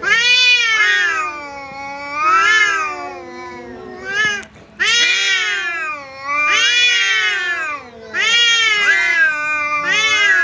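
Two domestic cats yowling at each other in a face-to-face territorial standoff: about six loud, drawn-out wails, each rising and then falling in pitch, with a lower moaning yowl carrying on between them.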